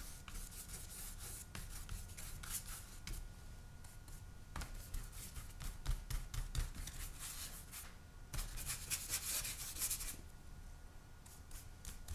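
Paintbrush loaded with acrylic paint brushing and scrubbing across smooth hot-press watercolor paper: a string of quiet, scratchy strokes, thickest about eight to ten seconds in, with a couple of soft knocks midway.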